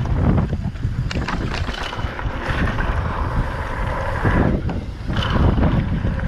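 Wind rushing over the microphone of a mountain bike descending a dry dirt trail at speed, with the tyres rolling on the packed dirt and occasional knocks and rattles from the bike.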